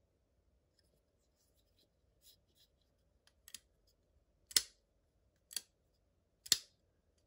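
Spartan Harsey folding knife being flicked open and dropped shut by hand, its blade locking and closing with sharp metallic clicks. A few light ticks come first, then four loud clicks about a second apart. The knife's action is smooth and crisp.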